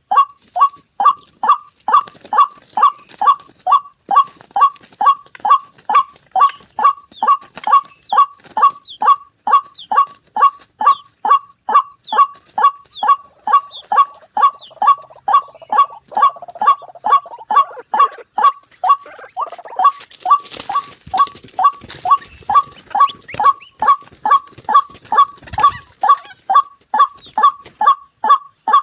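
Looped recording of white-breasted waterhen chick calls played from an MP3 bird lure: a short, evenly repeated call about twice a second. A rustling noise sits under the calls from about 19 to 26 seconds in.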